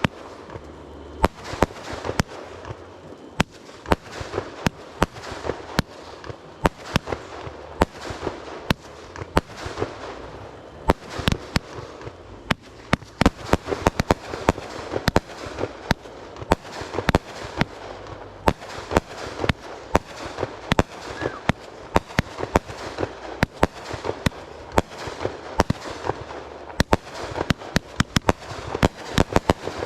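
Fireworks display: a constant run of sharp bangs from bursting shells, at irregular intervals and often several a second, over a continuous background of smaller pops and rumble.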